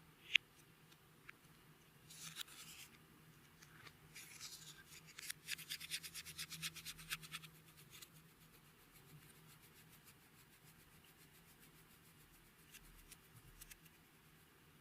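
Clear slime being worked by hand: soft squishing with a dense run of small rapid clicks and pops from about five to eight seconds in, then fainter scattered clicks.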